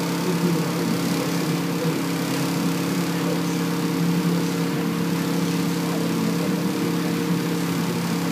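Skid steer engine running at a steady speed, an even hum with no changes in pitch or loudness.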